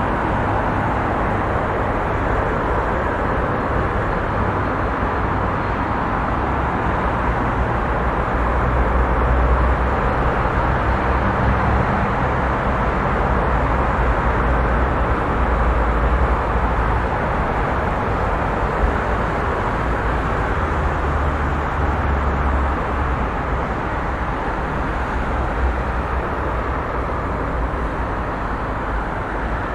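Heavy highway traffic: a steady, continuous wash of tyre and engine noise, with a deeper rumble swelling twice.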